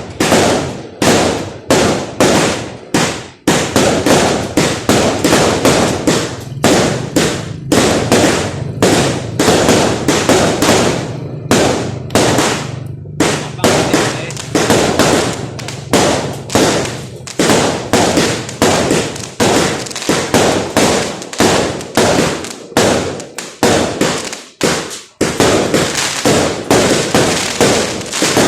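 Fireworks going off in a rapid, continuous barrage: loud bangs following one another several times a second, each trailing off in a brief rumble.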